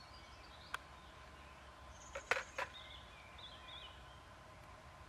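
Faint outdoor ambience with distant birds chirping. A few light clicks and knocks come as a radio-control transmitter and a miniquad are handled and set down on a wooden bench, the loudest two close together about two and a half seconds in.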